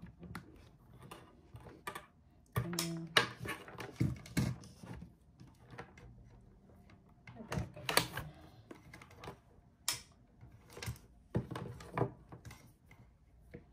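Irregular clicks, knocks and rattles of cables and their plugs being handled and pushed into a laptop's ports.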